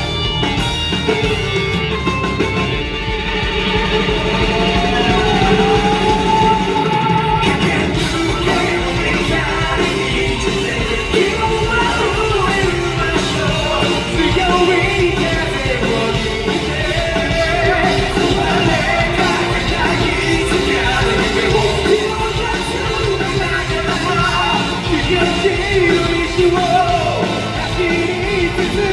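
Live rock band playing, with a male lead singer's voice sliding up and down over the full band.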